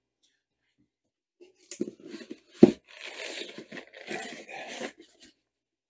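A foam packing sheet being pulled out of a cardboard box: rustling and scraping starting about a second and a half in, with one sharp knock about halfway through.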